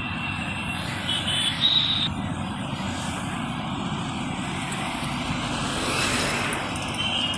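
Mixed highway traffic passing close by: a steady rush of tyres and engines from cars, motorcycles, an auto-rickshaw and a truck, with a few short high tones about a second in.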